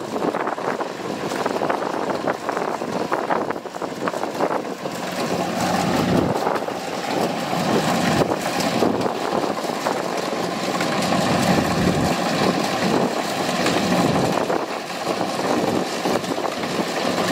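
Kubota DC-105X rice combine harvester's diesel engine and machinery running steadily while it cuts rice, getting louder over the first several seconds. A steady whine joins in about five seconds in.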